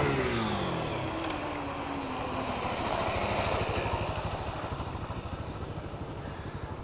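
Motorcycle engine as a rider pulls a wheelie past. Its pitch falls over the first two seconds, it is loudest around the middle, then fades as the bike rides away.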